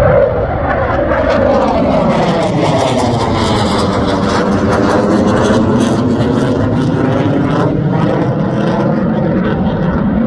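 Fighter jet flying low overhead and away, its jet engine noise loud and steady, with a slowly sweeping, phasing whoosh as it passes.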